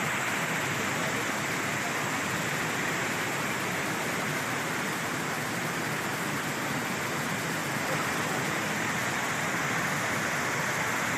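Steady rushing of water spilling over and between boulders in a rocky stream.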